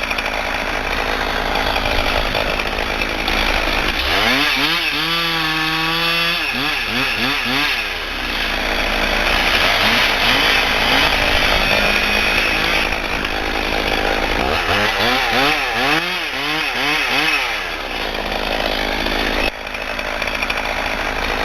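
Chainsaw running throughout, with two spells, about four seconds in and again about fifteen seconds in, where its engine pitch wavers rapidly up and down.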